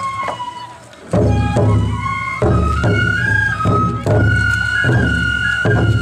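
Japanese festival procession music: a high transverse flute playing a melody of held notes over deep drum beats.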